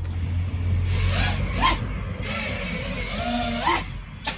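FPV quadcopter's brushless motors spinning up and lifting off while the quad is still soaked with water, its electronics sealed with a conformal coating. The whine rises and falls with throttle blips, sharply about a second and a half in and again near the end.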